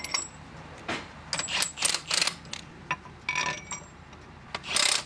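Scattered metal clinks, taps and scrapes of hand work on an excavator's track drive hub, with a longer burst of scraping noise near the end.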